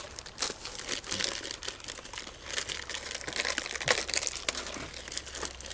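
Plastic packaging crinkling as it is handled, in irregular rustles and crackles.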